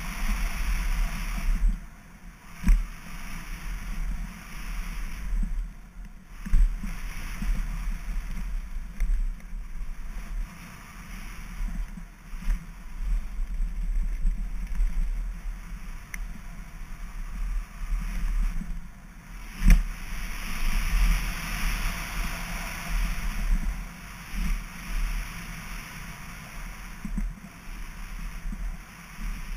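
Specialized Enduro Expert Carbon mountain bike riding fast down a dirt and gravel trail: steady tyre rolling noise and wind buffeting on the camera, broken by sharp knocks from bumps and jump landings, the loudest about twenty seconds in.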